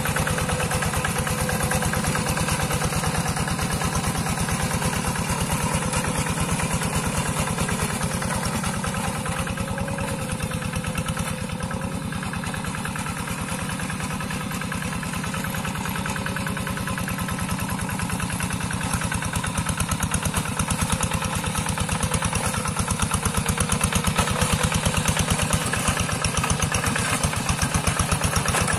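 Two-wheel hand tractor's single-cylinder diesel engine running steadily while it pulls a plough through a wet rice paddy, a fast even chugging that grows louder in the last few seconds.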